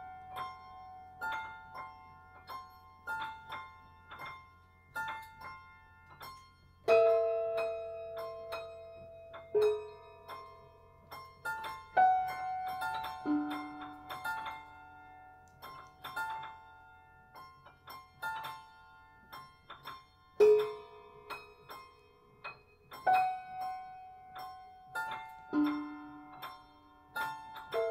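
Prepared Disklavier grand piano played by computer: sparse single notes in a repeating pattern about once a second, each ringing and fading, with louder, lower notes struck every few seconds.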